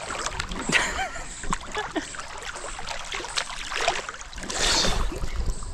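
Swimming-pool water splashing and lapping right at a camera held at the surface while a man swims, with many small irregular splashes and a louder splash about four and a half seconds in.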